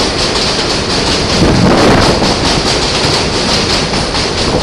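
New York City subway train of R46 cars pulling out of an elevated station and running past close by: a steady, loud rumble and screech of steel wheels on rail, swelling louder about one and a half seconds in.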